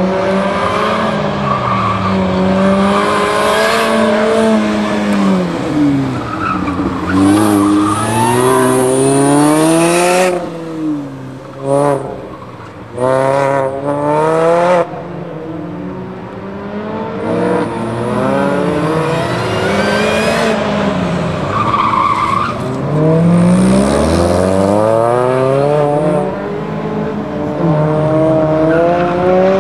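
Car engines on an autocross cone course, revving up and dropping back again and again as the cars accelerate and lift between cones. Tires squeal several times in the hard turns.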